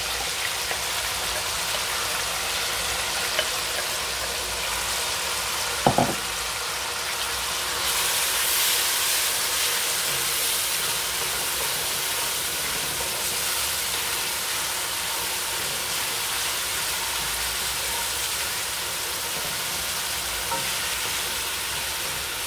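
Chopped onions sizzling in hot oil in a metal pot, stirred now and then with a wooden spoon; the sizzle swells a little around eight seconds in. A sharp knock with a short ring about six seconds in is the loudest single sound.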